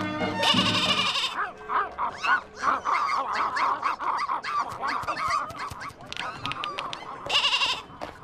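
A goat bleating over and over, a string of wavering calls.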